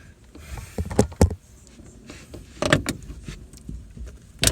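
A few sharp plastic knocks and clacks, loudest about a second in, another cluster near three seconds and one at the end: the 2011 Honda Civic's third brake light housing being pushed and worked against mounting clips that won't catch.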